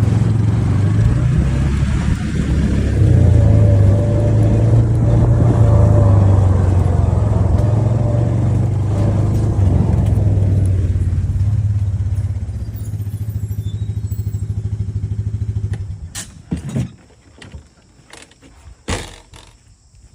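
Ford 550 backhoe's engine running steadily, fading away and stopping about sixteen seconds in, followed by a few knocks.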